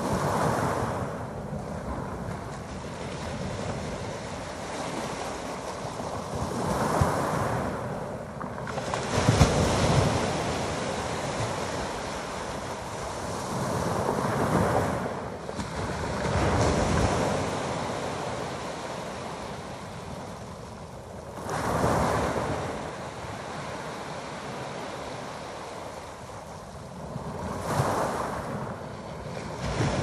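Small waves breaking on a pebble beach and washing over the stones, surging every five to seven seconds.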